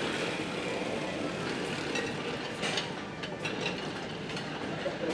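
Steady background din of a conveyor-belt sushi restaurant, with a few light clicks in the middle.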